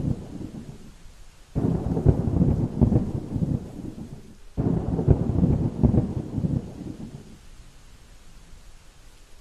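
Thunder rumbling in heavy rolls. One fades out in the first second, then two more break in suddenly, about 1.5 and 4.5 seconds in, each rolling for about three seconds before dying away.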